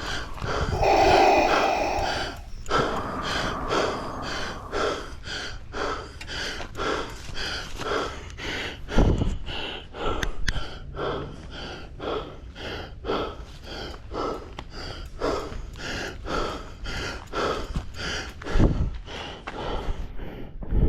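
A mountain biker panting hard, quick heavy breaths about two a second, out of breath from pedalling up steep hills. Two low thumps come about halfway and near the end.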